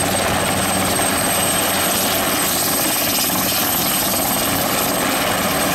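Light helicopter hovering close to the ground: steady engine and rotor noise with a thin, high, steady whine over it.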